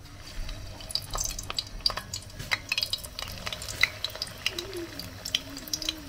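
Plantain dough pieces frying in hot oil in an aluminium frying pan: a steady sizzle with irregular sharp crackles and pops as the oil spits around the freshly added dough.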